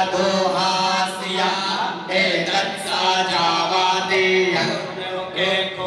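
Priests chanting Sanskrit Vedic mantras in a steady recitation, with short breaks between phrases.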